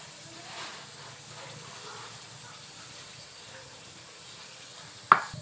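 Faint steady hiss of a lit gas stove burner heating a wok with cooking oil in it. A single sharp click comes about five seconds in.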